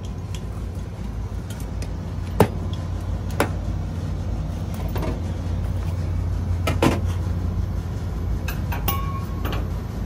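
A steady low hum with a handful of sharp clicks and knocks scattered through it, the loudest about two and a half seconds in and again near seven seconds in.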